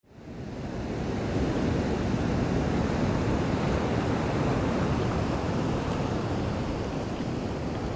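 A steady rushing noise with no pitch or rhythm, fading in over the first second.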